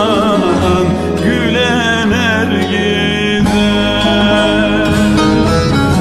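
Background music: a wavering, ornamented melody over sustained low notes.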